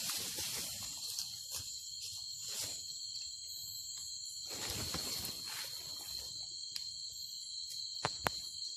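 Night-time insect chorus: a steady high-pitched trilling at two pitches, with a few soft rustles and one sharp click near the end.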